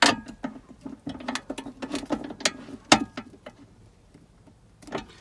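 Ratcheting wrench clicking in quick runs as a bolt is tightened down inside a metal console safe. The clicking stops about three and a half seconds in, with the bolt snug.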